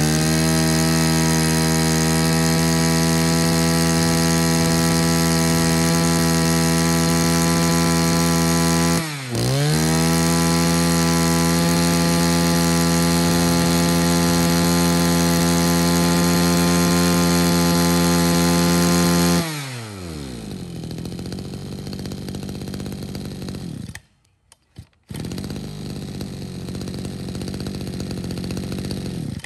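Mitsubishi TL23 23cc two-stroke brush-cutter engine running at high revs; about nine seconds in the throttle is let off and opened again. About twenty seconds in it drops to a quieter idle, with a short break in the sound a few seconds later.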